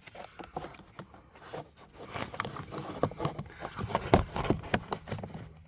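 Plastic steering-column trim and switch housing being worked by hand while a release tab is pushed: irregular scraping, rustling and small clicks, with one sharper knock about four seconds in.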